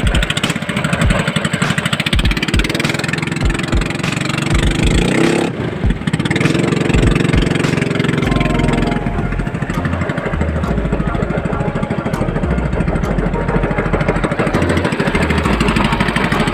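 Small engine of a motorized outrigger boat running steadily with the boat underway. It rises briefly in pitch around four to five seconds in, and its note changes abruptly twice.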